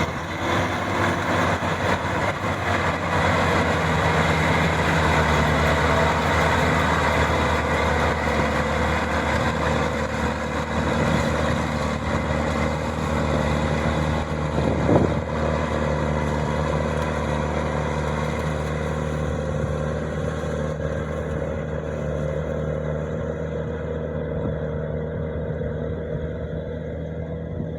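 Combine harvester's diesel engine running steadily at working speed, with a brief thump about halfway through. The sound grows gradually quieter and duller over the last several seconds.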